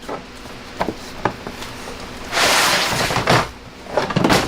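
A hard plastic tool case being handled: a few sharp clicks, about a second of scraping in the middle, then a cluster of knocks near the end.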